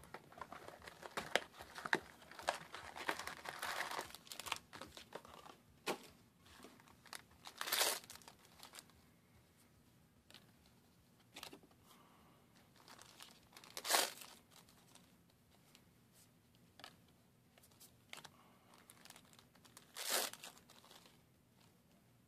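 Foil trading-card booster packs being crinkled and torn open: dense crinkling for the first few seconds, then three louder rips about six seconds apart, with light rustles and clicks of cards being handled between them.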